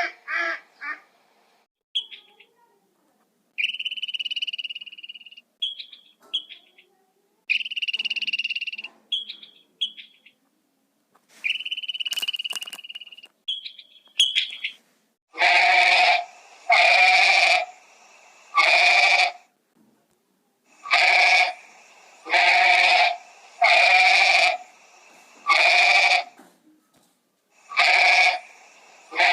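Animal calls: first scattered short, high chirping notes, then from about halfway a run of loud, pitched calls repeated about once a second.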